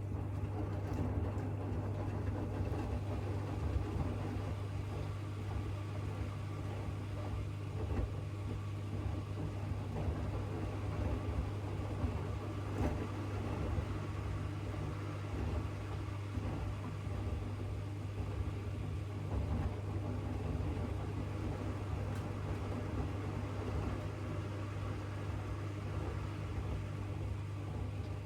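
AEG 8000 Series front-loading washing machine running an Easy-care 30°C cycle: a steady motor hum under continuous rumbling machine noise, setting in at the very start.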